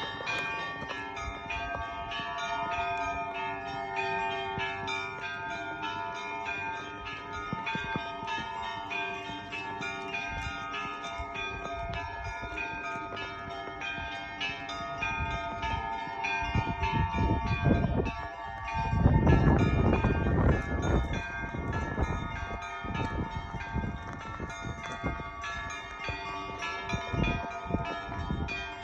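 Russian Orthodox church bells ringing, several bells struck over and over with their tones ringing on. About two-thirds of the way through, a loud low rumble covers them for a few seconds.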